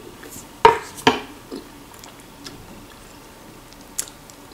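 Close-up eating sounds of a person taking chicken broth with broccoli from a spoon: two loud, short mouth sounds about half a second apart near the start, then faint mouth clicks. A sharp smack comes near the end as she licks her fingers.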